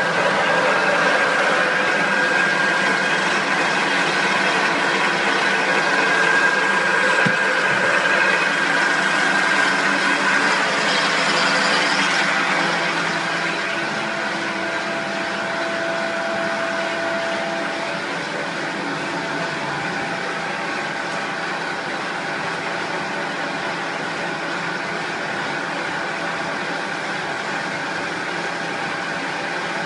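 Plastic extrusion and pelletizing machinery running steadily, a dense mechanical whir. A thin high whine sounds over it for the first ten seconds or so, and a lower hum comes in briefly midway.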